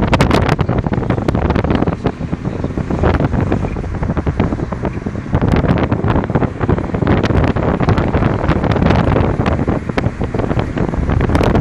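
Wind buffeting the microphone from inside a moving car, in uneven gusts over steady road noise.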